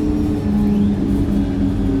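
Wright StreetLite single-deck bus's engine and drivetrain running under way, heard from inside the saloon as a steady drone over a low rumble. The drone's pitch drops about half a second in.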